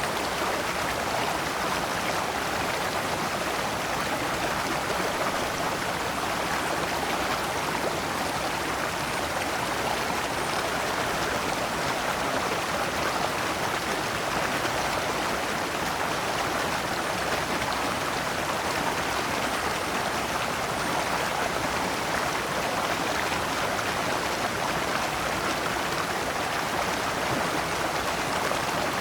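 Shallow rocky stream running steadily over stones, water splashing through small cascades in an even, unbroken rush.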